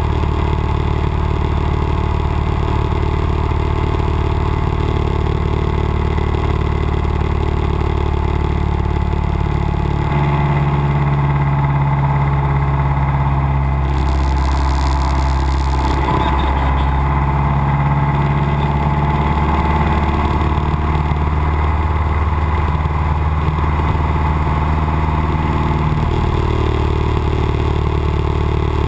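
Cessna 172's piston engine and propeller droning steadily in the cabin. Its note shifts about ten seconds in and shifts back a few seconds before the end, with a brief rushing hiss midway.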